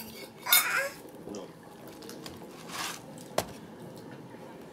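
Small metal spoon scraping and clinking in a baby food jar while baby food is scooped out, with a sharp clink about three and a half seconds in. A short voice sound comes about half a second in.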